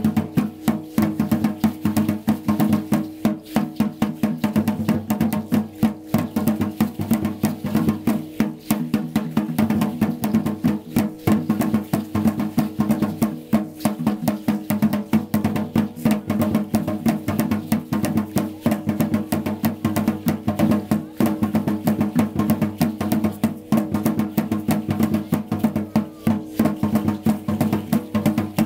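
Dance music with rapid, unbroken percussion over a steady drone.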